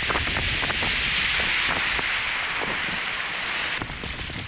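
Sea waves surging and washing over a shallow reef edge, a loud hiss that swells about a second in and falls away near the end, with wind buffeting the microphone underneath.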